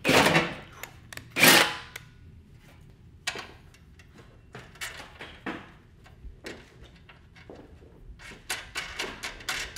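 A drill biting through the mower's sheet-metal hood in two short bursts in the first two seconds, then small metallic clicks and taps as a bolt, washer and nut are fitted by hand, with a quick run of clicks near the end.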